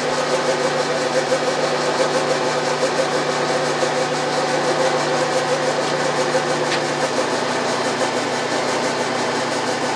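Bridgeport milling machine running, its end mill taking an extremely light skim cut across the top face of a metal workpiece as a steady machining drone. About seven seconds in, part of the sound drops away as the cutter runs off the end of the work, while the spindle keeps running.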